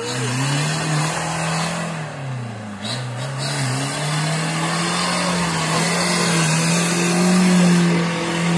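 Off-road 4x4's engine revving hard as it drives through deep mud. The revs dip about three seconds in, then climb again and stay high, loudest near the end.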